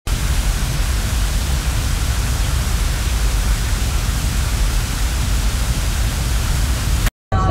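A loud, steady rushing noise, spread evenly from deep to high with a heavy low rumble and no pattern or voice in it, that cuts off abruptly near the end.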